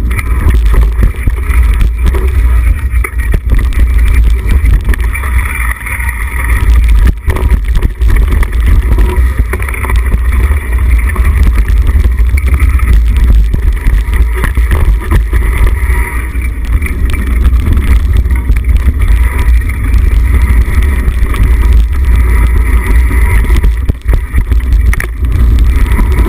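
Wind rushing over the microphone of a camera riding along on a mountain bike descent, with a steady low rumble from tyres rolling over a muddy dirt trail. Frequent small knocks and rattles from the bike jolting over bumps.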